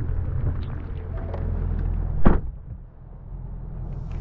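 Roush Mustang's door shutting with one sharp thud about two seconds in, over the steady low rumble of the idling engine, which turns duller and quieter once the door is closed.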